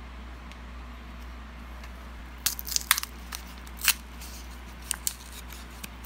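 Clear plastic film crinkling and crackling in gloved hands: a run of sharp crackles starting a little over two seconds in and lasting about three seconds, under a steady low hum.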